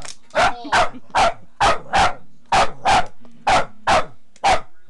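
Boston terrier barking over and over at a running foot massager, short sharp barks coming about two to three a second, some in quick pairs.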